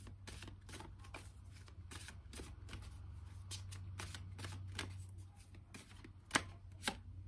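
A deck of oracle cards shuffled by hand: a quick run of soft card flicks and slides, with two sharper snaps near the end, over a steady low hum.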